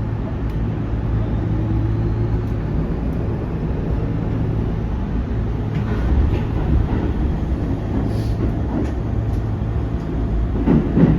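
Kintetsu 1810 series electric train running: a steady low drone, with a faint whine rising in pitch a second or two in.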